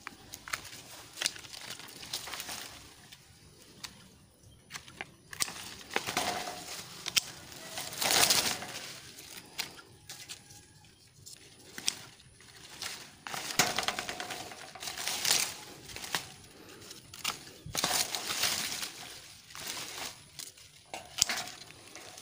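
Grapevine leaves rustling and crinkling in repeated bursts as they are pulled and torn off the trellised vine, with a few sharp clicks of pruning shears.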